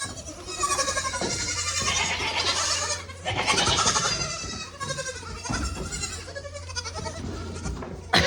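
Several goats bleating over one another in long, wavering bleats, the loudest in the first five seconds.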